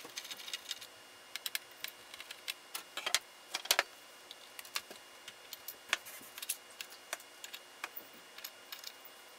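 Irregular small clicks and clinks of hand work on a circuit board in a plastic enclosure, as a clip lead and pliers are handled, with a cluster of louder clicks about three to four seconds in.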